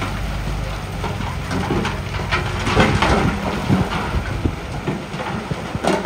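Diesel engine of heavy earthmoving machinery running steadily, with loose stone clattering and knocking in irregular bursts.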